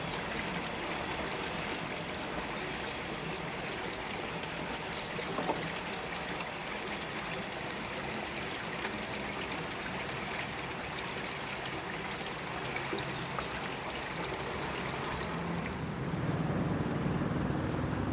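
Container freight train's wagons rolling over the rails, a steady rattling hiss with a few faint clicks. About 16 s in, a deeper hum comes in louder.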